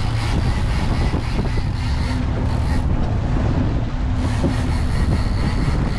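Boat engine running steadily at slow speed, with wind buffeting the microphone.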